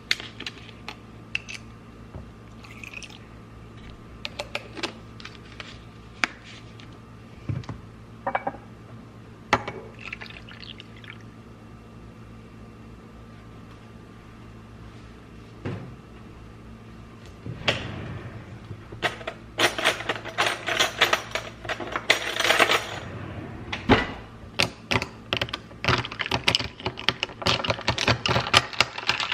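Home espresso machine brewing: a steady pump hum as coffee pours into the cup, with scattered clicks, and a dense crackling run of clicks over roughly the last ten seconds.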